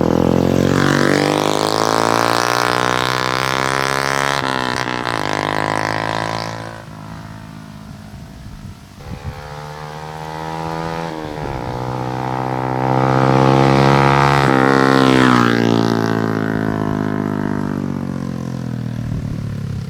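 Motorcycle running through a Charama 9 replica conical exhaust while ridden. The engine note rises under acceleration and breaks off at gear changes. It drops and quietens for a couple of seconds about a third of the way in, then builds again to its loudest before falling away near the end.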